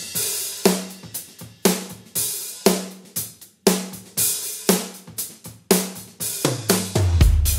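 Groove Drum Co. Pancake drum kit, a shallow-shell drum set with Paiste cymbals, played with sticks in a steady groove. Snare, drum and cymbal hits are accented about once a second, heard through the overhead microphones only.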